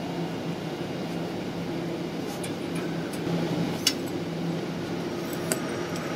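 Steady low machine hum with a faint even drone. A couple of short, light clicks, about four and five and a half seconds in, come from the hand cutting tool and its cable being handled.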